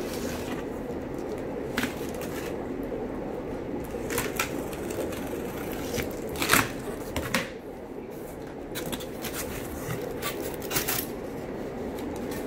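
Plastic stretch wrap and packing tape being peeled and torn off a cardboard shipping box as the flaps are pulled open: irregular crackles and rips, the loudest about halfway through, over a steady low hum.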